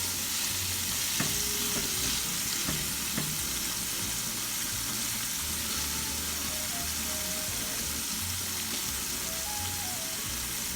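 Cornstarch-coated chicken pieces frying in hot oil: a steady sizzle, with a few light clicks in the first three seconds.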